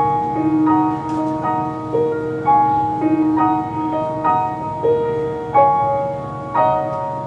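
Upright piano played solo: a repeating figure of struck single notes and chords. The last chord comes about six and a half seconds in and is left to ring and fade.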